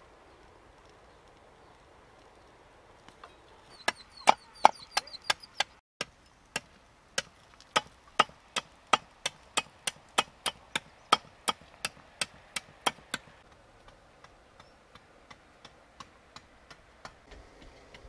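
Blade chopping into a green bamboo pole, sharp strokes about two a second, then lighter, fainter taps for the last few seconds.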